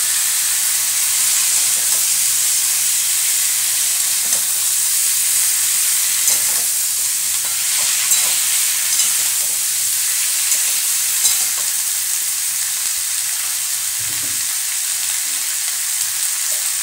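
Potato pieces sizzling in hot oil in a metal kadai, a steady hiss, with the scrape and tap of a metal spatula stirring them every second or two.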